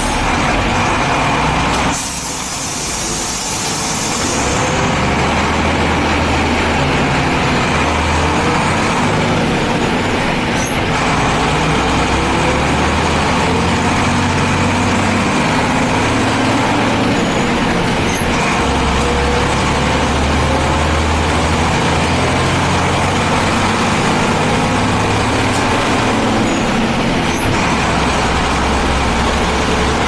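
Mercedes-Benz city bus diesel engine running, its pitch rising and falling repeatedly as it pulls. A short hiss of air about two seconds in.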